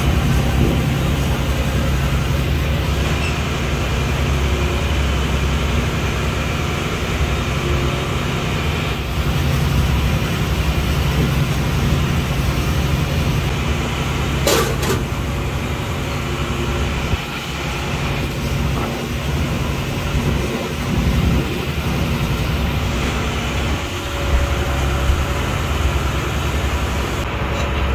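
A fishing boat's engine running with a steady low drone, with one sharp knock about halfway through.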